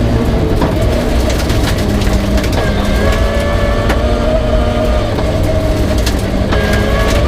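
Peugeot 306 rally car engine running hard at stage pace, its pitch rising and dropping as the revs change. Stones and grit clatter against the car in quick sharp clicks.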